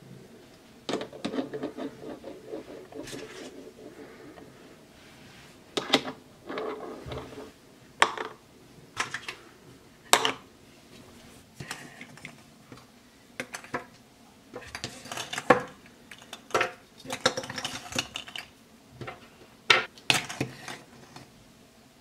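Plastic toy kitchen pieces being handled: light hard-plastic clacks and knocks as toy cups and velcro toy food are picked up and set down, with bursts of rattling clatter about a second in, around six seconds and around fifteen seconds.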